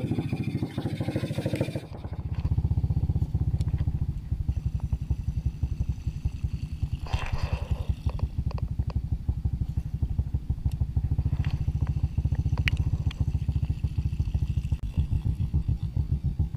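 Small boat engine running with a steady, fast low putter, starting up loud about two seconds in as the boat gets under way.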